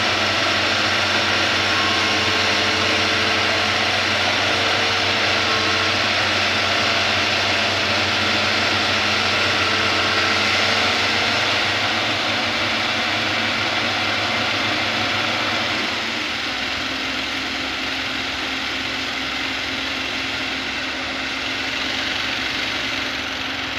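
Excavator's diesel engine running steadily. About sixteen seconds in, its note changes and the level drops a little.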